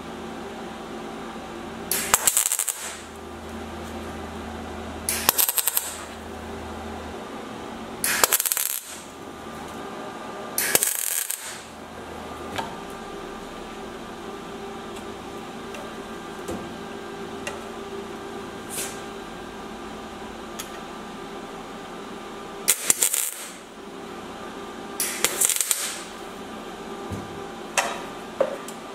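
MIG welder tack-welding sheet-steel body panels: about seven short crackling bursts of the arc, each under a second, at irregular intervals, with a steady hum between them.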